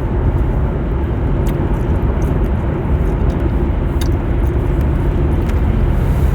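Steady low rumble of a car on the road, heard from inside the cabin, with a few faint clicks.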